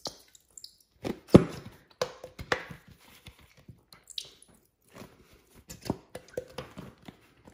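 Shampoo being squeezed from a plastic bottle into a glass bowl: scattered soft wet squelches and clicks, with a louder one about a second and a half in.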